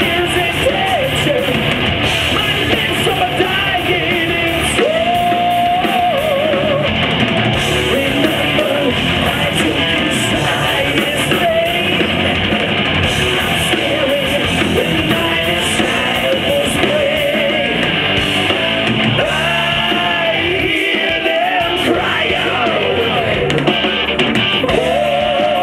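Symphonic heavy metal band playing live: distorted electric guitars, bass, keyboards and drums with a sung vocal line, recorded from the audience with a muffled top end.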